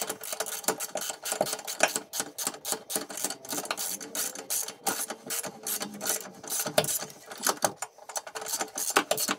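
Socket ratchet clicking rapidly in quick strokes as it runs a nut down onto the lower strut bolt, with a short lull near the end.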